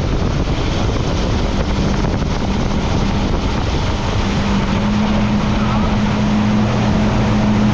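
Motorboat engine running steadily under way, its pitch stepping up slightly about five seconds in, with heavy wind noise on the microphone.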